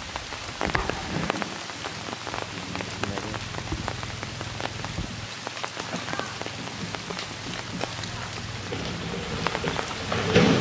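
Steady rain falling on the surface of a pond: an even hiss dotted with many separate drop ticks, with one louder burst near the end.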